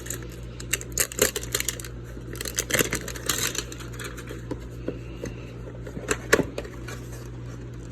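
Plastic packaging of baseball cards being torn open by teeth and hands, with irregular crinkling and crackling and a few sharper rips, the loudest about one, three and six seconds in.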